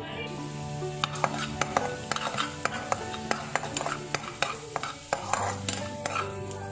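A spatula scraping and tapping against a non-stick kadai in quick, irregular strokes, stirring grated bitter gourd peel frying in oil, with a light sizzle underneath.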